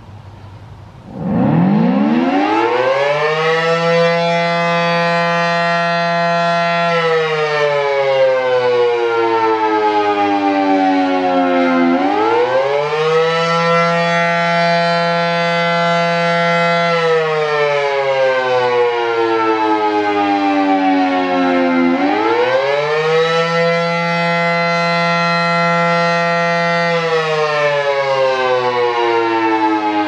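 Federal Signal SD-10 outdoor warning siren sounding the attack signal. It winds up from rest about a second in, then rises and falls in pitch three times: a quick rise, a few seconds held at the top, then a slow fall, about ten seconds per cycle.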